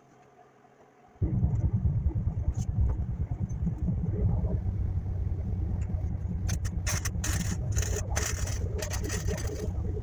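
A steady low rumble starts about a second in. From about two-thirds of the way in, an electric arc welder crackles for about three seconds as a tail light housing is tack-welded to sheet metal.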